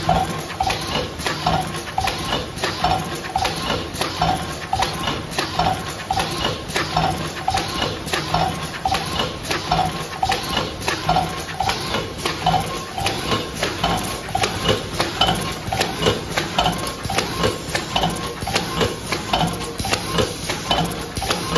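Automatic two-station paper tray forming machine running at production speed: a steady, rapid rhythm of mechanical clacks and knocks, several strokes a second, from its forming blocks and pneumatic mechanisms.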